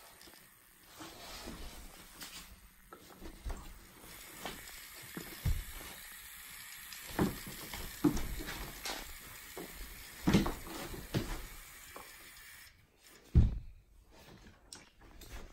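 Small robot car's electric gear motors running as it drives across a hardwood floor, with several dull thumps, the loudest about ten and thirteen seconds in.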